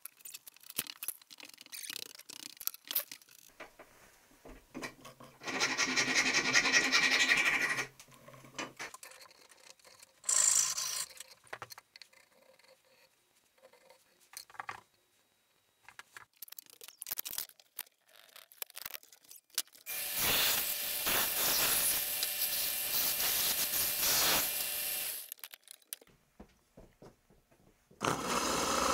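Workshop handling sounds: taps, rubbing and clatter of tools and parts on a metal bench, with a power tool running twice for a few seconds. Near the end a stationary workshop machine starts up and keeps running.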